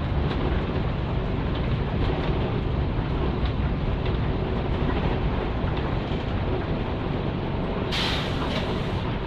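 Inside the cabin of a Nissan Diesel K-U31L bus, its PE6H diesel engine runs as a steady low drone over road and body noise. About eight seconds in there is a short hiss of air lasting about a second.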